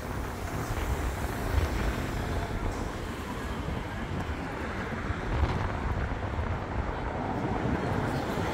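Steady city road traffic: cars and buses passing on a busy street, with a constant low rumble.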